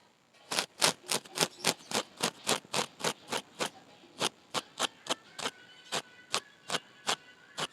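A blade chopping pumpkin leaves into fine pieces: a steady run of sharp chops, about three to four a second, slowing a little in the second half.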